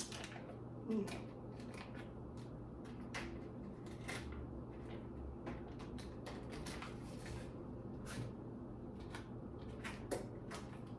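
Irregular light clicks, taps and scrapes of kitchen utensils and a bowl being handled while preparing a graham cracker crust, over a steady low hum.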